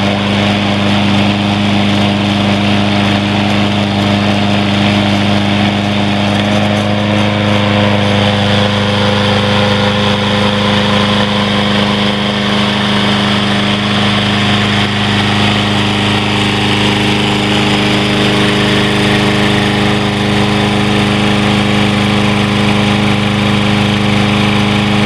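Troy-Bilt XP 21-inch lawn mower's 7.75 hp, 175 cc Briggs & Stratton overhead-valve engine running steadily at a constant speed.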